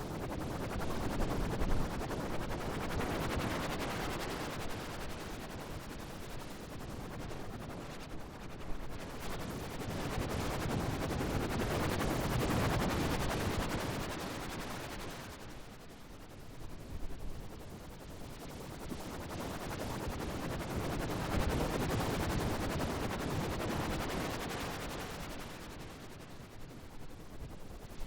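Dense crackling, rattling noise that swells and fades in slow waves, peaking about every nine seconds.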